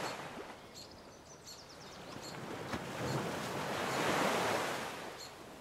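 Ocean waves washing in softly, one swell building to a peak about four seconds in and then ebbing away.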